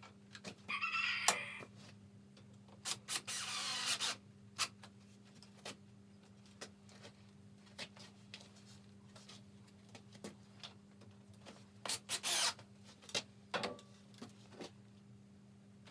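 Hand work on wooden window sill pieces: a few short rubbing or scraping strokes, one about a second in, a longer one around three to four seconds and another near twelve seconds, among scattered light knocks and clicks, over a steady low hum.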